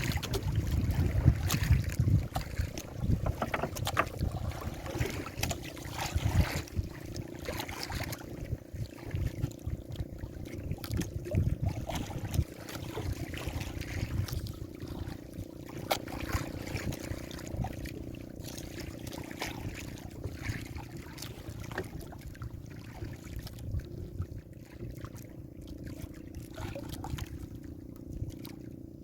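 Small fishing boat on a choppy sea: water splashing against the hull and wind on the microphone, with scattered knocks and a steady low hum underneath.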